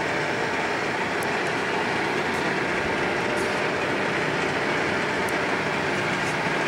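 Clausing Colchester Mascot 1600 engine lathe running under power, giving a steady mechanical whirring that does not change, with a few faint ticks.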